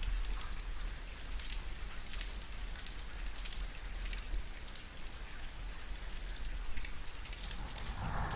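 Steady rain falling, with many small drop ticks over a constant hiss. A louder, low rumble comes in near the end.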